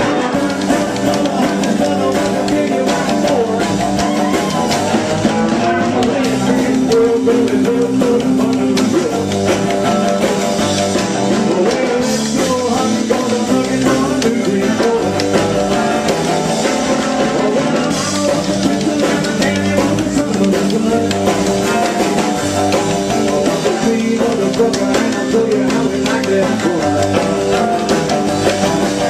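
Rock music with drums, guitar and singing, playing at a steady loud level.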